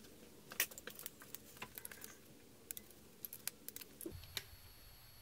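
Scattered light metallic clicks and clinks of hand tools being handled: a socket extension being found and fitted to a small torque wrench.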